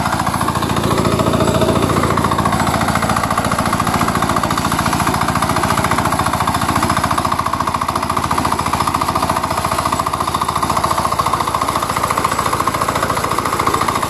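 Kuliglig hand tractor's single-cylinder diesel engine running steadily with a fast, even chugging while it works a muddy rice paddy.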